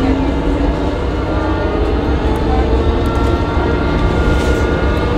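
2012 New Flyer C40LF city bus heard from on board, its Cummins Westport ISL G natural-gas engine and Allison B400R transmission running with a steady low rumble under a few faint whining tones and light rattles.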